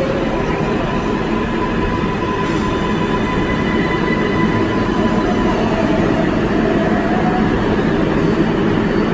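NYC subway 7 train of R188 stainless-steel cars pulling into the station and slowing to a stop. A steady loud rumble of wheels and motors, with thin whining tones over it; the whine changes pitch about halfway through.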